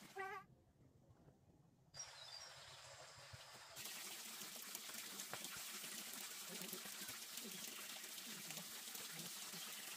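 Quiet outdoor ambience: a steady rushing hiss comes in about two seconds in and grows fuller near four seconds, with a few faint high chirps early on.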